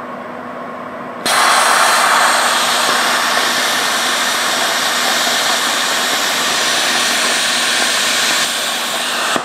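Saber 70 CHP air plasma cutter cutting 5 mm stainless steel plate at 20 amps: a loud, steady hiss of the plasma arc that starts suddenly about a second in, after a quieter hiss, and eases slightly near the end.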